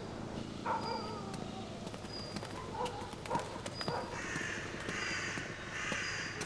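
A crow cawing over and over, a harsh call a little more than once a second, starting about four seconds in. Before it come scattered footstep-like clicks and faint high chirps.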